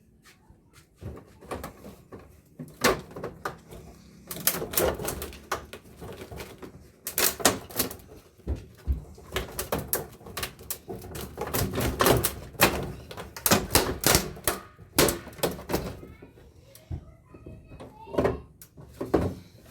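Irregular clicking, knocking and clattering of plastic and metal parts as an air-conditioner indoor unit is pried apart and handled by hand. It starts sparse and becomes a busy run of sharp knocks a few seconds in.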